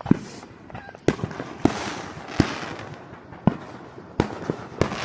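Fireworks going off: a string of about eight sharp bangs at uneven intervals, with a crackling hiss after the bangs around two seconds in.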